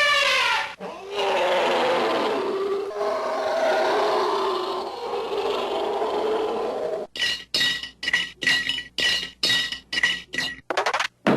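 A run of vintage Hanna-Barbera cartoon sound effects: a short pitched tone, then several seconds of clattering, crashing noise with wavering tones, then a string of sharp clinking strokes about four a second, and near the end a very rapid run of clicks.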